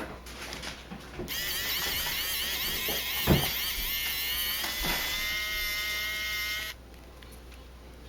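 A small battery-powered precision screwdriver motor whining for about five seconds as it backs out tiny Phillips screws, its pitch wavering at first and then holding steady before it cuts off. A single sharp knock comes partway through.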